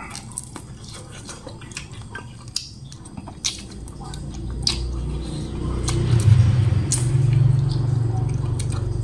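Close-up wet chewing, lip smacks and finger-sucking as a person eats fried rat meat by hand, with scattered small clicks. From about four seconds in, a low steady hum builds up underneath and becomes the loudest sound.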